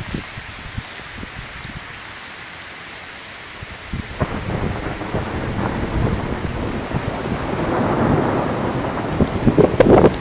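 Steady rain hiss, with a rumble of thunder that builds from about four seconds in and grows loudest near the end.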